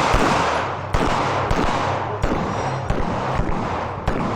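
A string of pistol shots, about one a second, each a sharp crack trailing off in a long echo.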